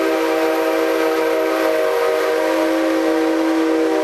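Whistle of the C57 steam locomotive sounding one long, steady blast, a chord of several pitches held without a break.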